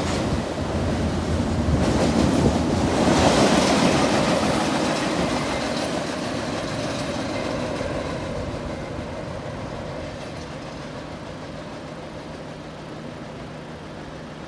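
Double-stack intermodal container cars rolling past on the rails, the wheels clicking over the track. The sound is loudest a few seconds in, then fades steadily as the end of the train moves away.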